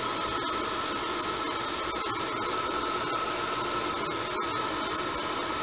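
Handheld hair dryer running steadily on high heat: a constant rush of air with a thin, steady high whine on top.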